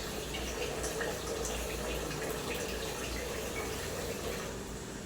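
Water running steadily from a tap into a sink, with scattered light clinks.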